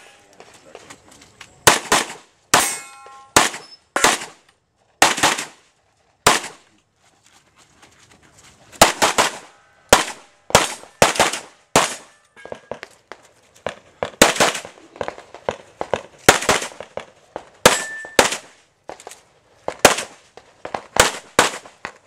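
Pistol fired in a long, irregular string of about thirty shots, many in quick pairs, with a pause of about two seconds near the middle. A few hits on steel pepper-popper targets ring with a short clang.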